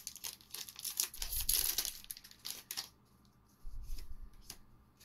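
The foil wrapper of a Magic: The Gathering booster pack being torn open and crinkled, loudest about a second in, then a few soft clicks and taps as the cards inside are handled and sorted.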